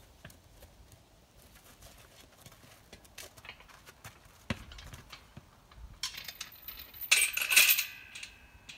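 A horse stepping about on dirt, then a loud metallic rattle and clatter of a steel panel yard gate being handled from horseback, with a short ringing after it, about seven seconds in.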